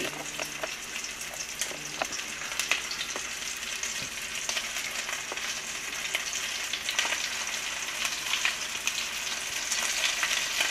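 Chickpea and potato patties shallow-frying in hot oil in a nonstick pan: a steady sizzle with scattered crackling pops, a little louder toward the end as more patties go into the oil. The sizzle shows the oil is hot enough for frying.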